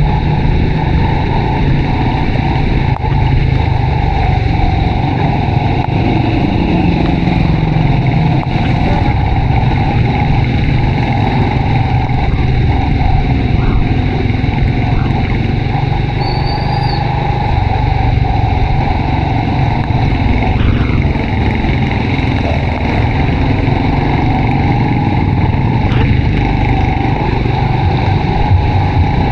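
Honda RSX 110 underbone motorcycle's small single-cylinder four-stroke engine running steadily while riding, its pitch drifting gently with speed, under a steady rush of wind and road noise.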